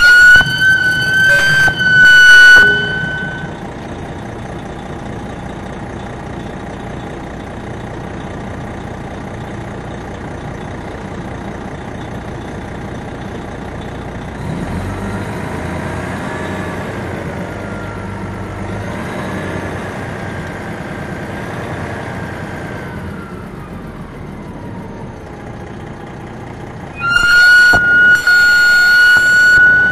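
On board a 2001 MCI D4000 coach: its Detroit Diesel Series 60 engine running steadily, growing louder about halfway through with its pitch rising and falling, then easing back. A loud, steady high-pitched tone, with a few sharp clicks, sounds for the first couple of seconds and again near the end.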